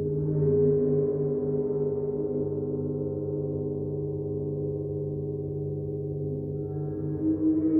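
Gong ringing with a dense, sustained wash of overlapping low tones that swells just at the start and swells again about seven seconds in.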